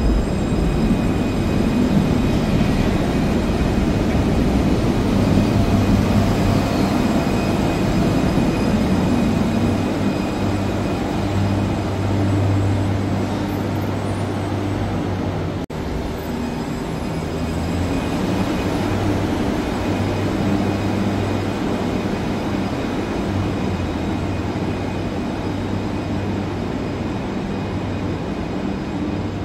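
Light-rail tram at an underground station platform: a steady hum of its motors and running gear with a constant low drone. There is a short break about halfway through, where the recording cuts to another shot.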